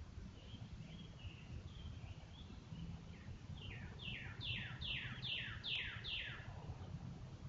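A bird calling: soft high notes, then a run of about seven clear notes, each sliding down in pitch, about two to three a second and growing louder. A low rumble of wind or camera noise runs underneath.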